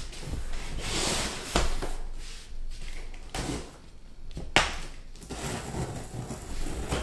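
A cardboard shipping box being cut open and handled: rustling and scraping of cardboard with a few sharp knocks, the loudest about four and a half seconds in.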